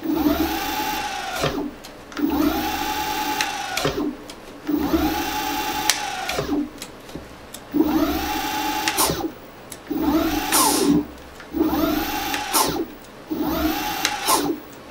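VSETT 10+ electric scooter's hub motors whining as the raised wheels are spun up on the throttle and brought down by the brakes, about seven times in a row. Each burst rises in pitch, holds, then drops quickly before a short pause.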